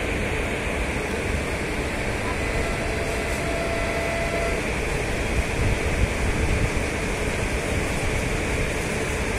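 Steady noisy ambient rumble with a fluctuating low end. A faint held tone sounds for about two seconds near the middle.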